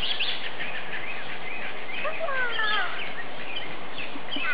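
Small birds chirping and calling repeatedly over a steady outdoor hiss, with a run of gliding calls about two seconds in.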